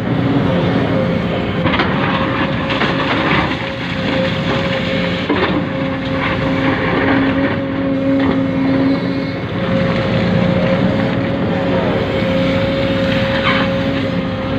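Small electric motors and gearing of radio-controlled construction models whining steadily, with a continuous mechanical hum underneath and scattered clicks and scrapes.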